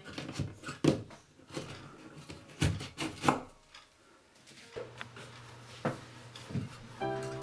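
Irregular clicks and knocks of a metal electrical box being worked loose and pulled out of a wall opening, then its wires being handled. Steady background music comes in near the end.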